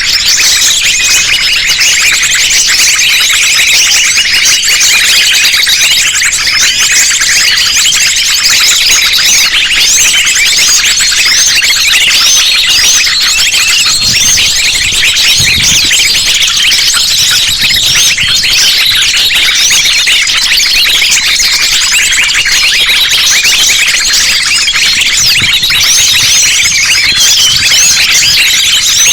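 A dense, noisy chorus of small songbirds, a lure mix of sunbird, flowerpecker and minivet calls: many rapid high chirps, twitters and trills overlapping without a break.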